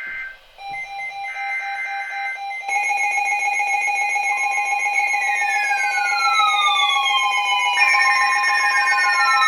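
Several weather alert radios sounding their alarms at once. A pulsing beep is joined by more steady tones, and they grow louder about a third of the way in. From about halfway, a tone sweeps downward every few seconds over the steady tones.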